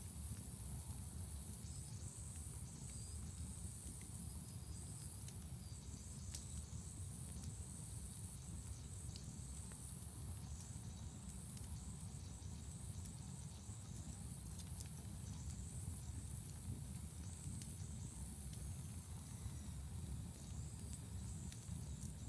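Wood fire crackling, with scattered sharp pops over a steady low rumble of burning. A high-pitched insect trill repeats in spells of a second or two.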